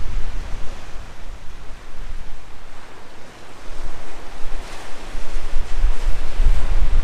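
Strong wind buffeting the microphone in gusts, over small surf washing onto a sandy beach. The wind eases for a couple of seconds in the middle, then gusts hard again.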